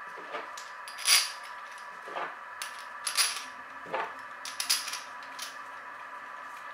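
Steel bolts clinking and tapping against the aluminium Pro-Cruise freewheel adapter and the tabletop as they are picked up and pushed through its holes: several separate light metallic clicks.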